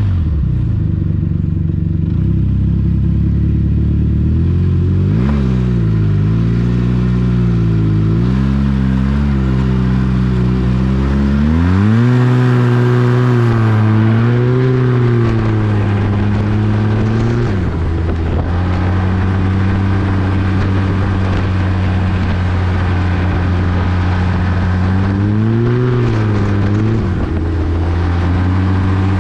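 Arctic Cat 1100 Turbo snowmobile's turbocharged four-stroke engine, with MBRP aftermarket exhaust, running hard under way from the rider's seat. Its pitch wavers, climbs sharply as it accelerates about a third of the way in, holds high, drops back about halfway through, then runs steady with a short rise near the end.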